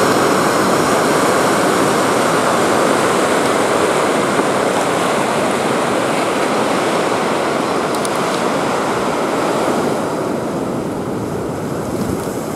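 Ocean surf: a steady rushing wash of breaking waves, easing a little about ten seconds in.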